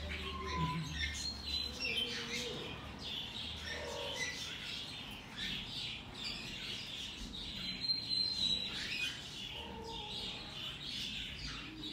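Birds chirping and tweeting over and over in quick short notes, with a sharper, louder call about eight seconds in.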